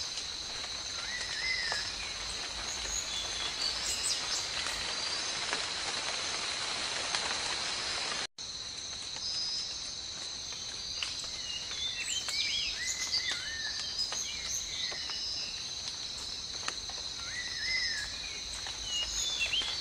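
Forest ambience: a steady, high-pitched insect drone with birds chirping throughout. The sound cuts out for a split second about eight seconds in, then resumes.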